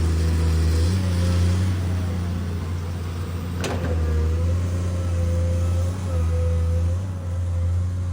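Hitachi hydraulic excavator working: its diesel engine runs steadily, its note shifting a few times, under a wavering hydraulic whine. There is a single sharp knock about three and a half seconds in.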